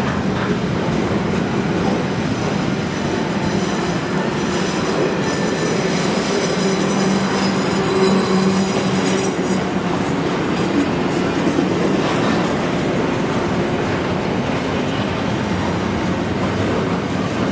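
Double-stack container train's well cars rolling past: a steady rumble and clatter of steel wheels on the rails, with a thin, high squeal from the wheels from about four to ten seconds in.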